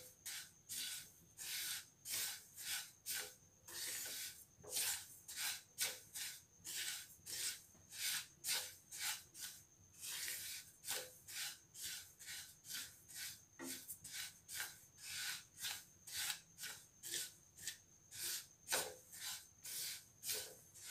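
Wooden spatula stirring sesame seeds as they dry-roast in a nonstick frying pan: a steady run of short scraping strokes, about two a second, with the seeds rustling across the pan.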